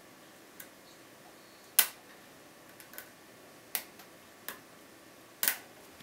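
Sharp metallic clicks and taps as lock-picking tools are handled against a euro-profile pin-tumbler lock cylinder and a tension wrench is fitted into its keyway. There are six separate clicks at uneven spacing, about a second apart; the loudest come about two seconds in and near the end.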